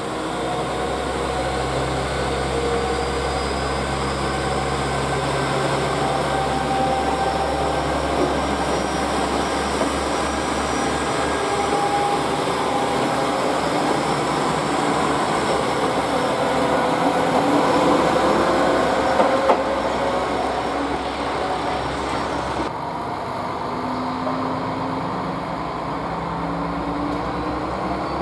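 KiHa 47 diesel railcar train moving off and running past, its diesel engine droning low under steady wheel-and-rail running noise with thin wavering squealing tones. The low drone fades within the first several seconds, and about three-quarters of the way through the sound changes abruptly to the train heard from farther off.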